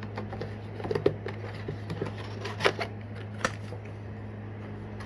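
Rustling and a few sharp clicks from fishing lure packages and paper info cards being handled, over a steady low hum.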